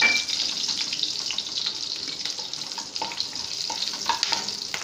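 Green chillies and mustard and cumin seeds sizzling in hot oil in a non-stick kadai as they are stirred with a wooden spatula, with scattered short clicks over the steady hiss.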